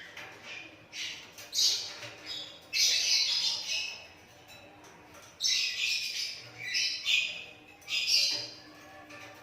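Hand-reared Asian pied starling (jalak suren) giving a series of about six harsh, rasping squawks, some short and some about a second long.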